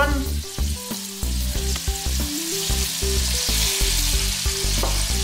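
Shrimp sizzling in hot garlic-chili oil in a stainless-steel wok, a steady frying hiss. Background music with a stepping bass line plays underneath.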